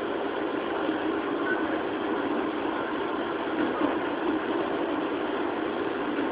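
Interior running noise of a JR 205-series electric commuter train car: a steady noise of wheels on rail and the car body, with no rise or fall in pitch.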